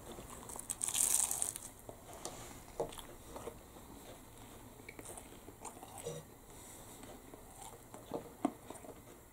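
A bite into a steak bridie's crunchy, flaky pastry crunches loudly about a second in, followed by quiet chewing with small mouth clicks.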